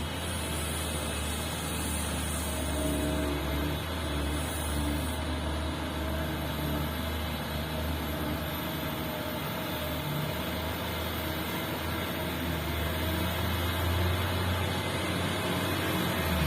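Heavy diesel mining machinery, a large excavator and haul truck, running with a steady deep engine drone that swells slightly near the end.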